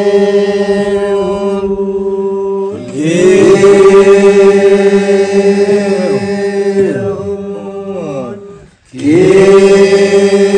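Voices chanting together on long held notes, with some sliding pitches, breaking off briefly about nine seconds in and then starting again.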